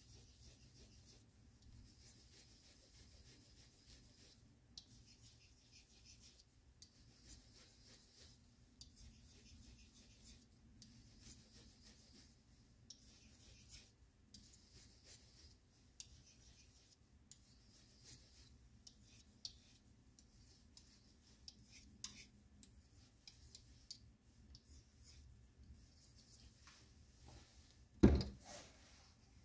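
Pocketknife blade stroked across a small handheld whetstone: faint, repeated scraping strokes with short pauses between them. Near the end, a loud knock as the stone goes into a plastic cup of water.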